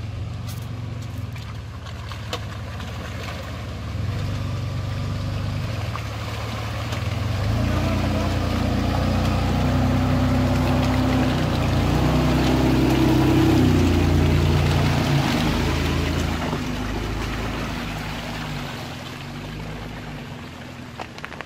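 A 4x4 vehicle's engine running under load on a rough track, its pitch shifting up and down as it works. It grows louder toward the middle, then fades.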